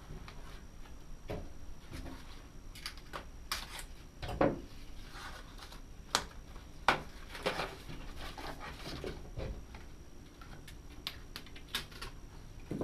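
Irregular light clicks, taps and rustling as small plastic parts and packaging of a slot-car lap counter are handled, with a few sharper knocks.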